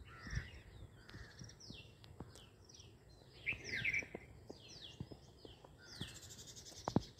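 Birds calling: many short, quickly falling chirps, loudest about three and a half to four seconds in, over a faint background hiss.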